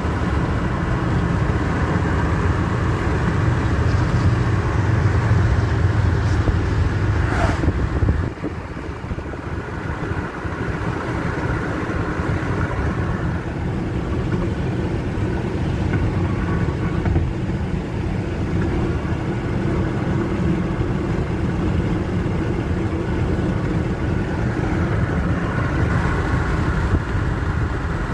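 Steady road and engine noise heard inside a moving car's cabin, a little quieter after about eight seconds.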